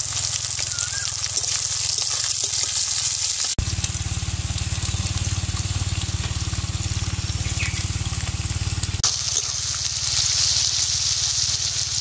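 Sliced onions sizzling in hot oil in a metal kadai, turned now and then with a steel ladle, over a steady low hum. The sound changes abruptly twice, about a third of the way in and again about three-quarters through.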